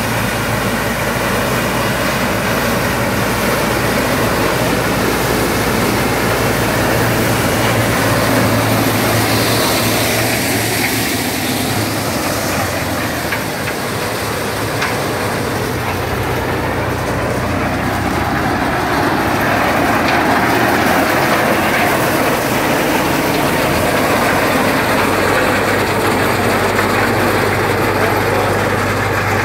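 Case IH tractor's diesel engine running steadily while it drives a Combine 361BR corn harvester through dry corn stalks: a constant engine drone under a dense clatter of harvesting machinery.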